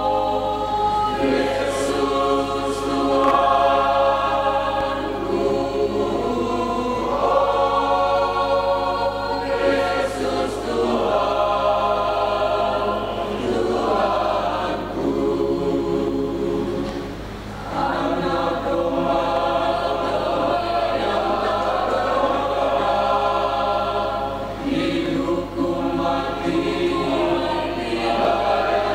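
Mixed church choir of men and women singing a hymn in harmony, in long held phrases, with a brief pause for breath a little past halfway.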